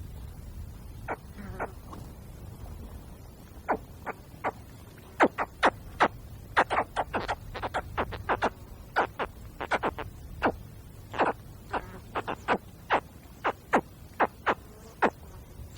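Spectacled caiman hatchling calling: short, sharp calls, a few spaced out at first, then coming quickly, often several a second, from about five seconds in.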